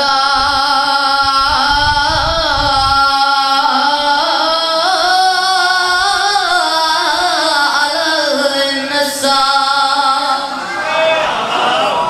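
A boy chanting alone into a microphone in long, drawn-out melodic phrases, holding notes and bending them slowly up and down in ornaments.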